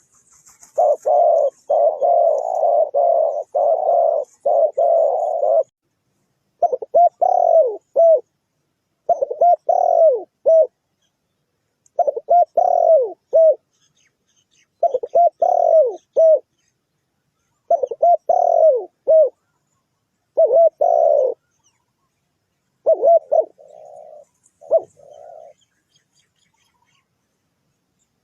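Spotted dove cooing: a long run of coos at first, then repeated short phrases of a few coos each, separated by pauses of about a second.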